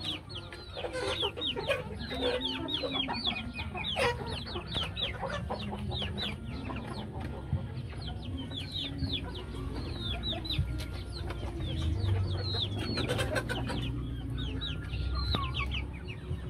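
A flock of young chickens peeping: many short calls, each falling in pitch, in quick overlapping succession, thinning briefly about halfway through.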